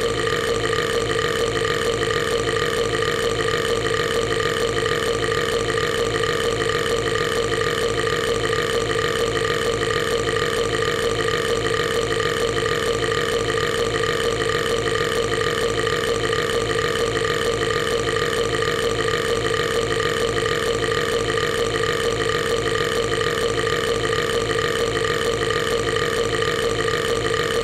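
A cartoon character's loud, drawn-out burp: one rough, buzzing belch held at the same pitch and loudness without a break.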